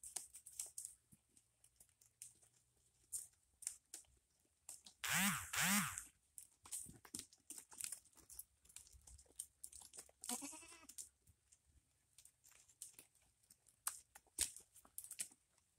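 Goats bleating: two loud bleats back to back about five seconds in, each rising then falling in pitch, and a fainter bleat about ten seconds in. Scattered light clicks and crackles run between the calls.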